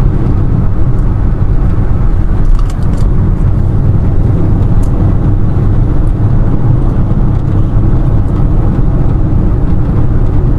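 Steady low drone of engine and road noise heard inside a Toyota Yaris's cabin while it is being driven, with a few faint clicks.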